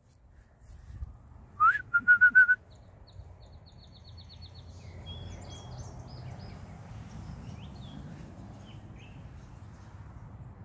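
A person whistling to call a dog, about two seconds in: one rising note, then several quick short whistles on the same pitch. Faint bird chirps and a fast ticking trill follow.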